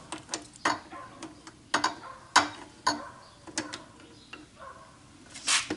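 Socket wrench on a Kawasaki KLR650 engine-mount bolt: a dozen or so short, irregular metallic clicks as the tool is worked, with a longer, louder scrape near the end.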